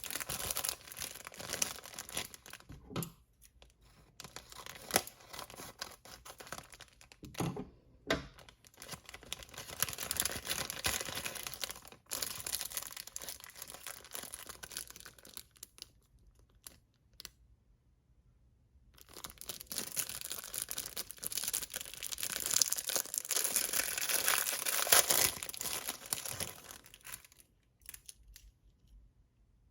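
Packaging being torn open and crinkled by hand, in rustling stretches with short pauses; a longer, louder bout of tearing and crinkling comes in the second half.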